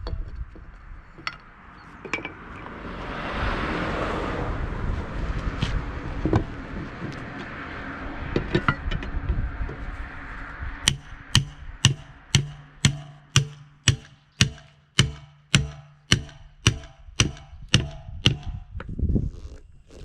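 Steel hammer blows on a Gaz66 steel split wheel rim, working a tight rim free of the tyre. Irregular knocks and noise come first; about halfway in, a run of about twenty evenly paced strikes begins, about three a second, each ringing with a metallic tone.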